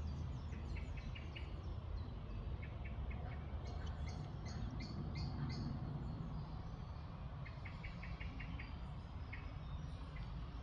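Small birds chirping in quick runs of four or five short notes, with higher calls in the middle, over a steady low rumble.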